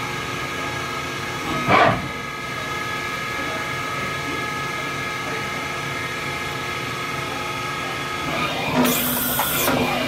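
Brother TC-324N CNC drilling and tapping center running a machining program: a steady hum with several steady tones. A louder burst of hiss comes about nine seconds in.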